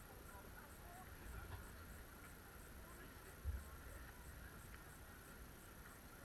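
Faint outdoor background ambience with a low rumble, broken by a single dull thump about three and a half seconds in.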